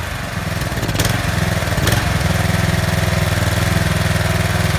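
Troy-Bilt pressure washer's Briggs & Stratton 190cc single-cylinder engine idling steadily, idled down with the spray trigger released. Two light clicks sound about a second and two seconds in.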